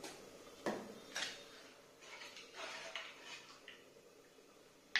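Light kitchen clatter of a spoon knocking and clinking against a cup and cooking pots. There is a sharp knock about two-thirds of a second in, another soon after, and a run of small clinks a little past the middle.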